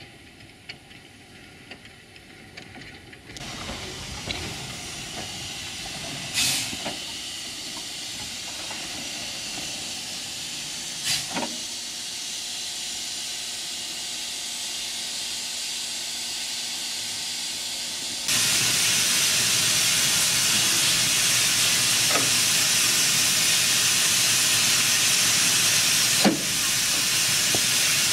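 Steam hissing steadily from a narrow-gauge steam tank locomotive. The hiss starts abruptly a few seconds in and becomes louder about two-thirds of the way through, with a few sharp metallic clanks.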